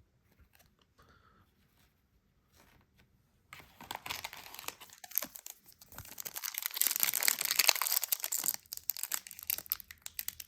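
A trading card pack wrapper being torn open and crinkled by hand, starting about a third of the way in as a dense crackle of many sharp clicks and rustles that goes on to the end.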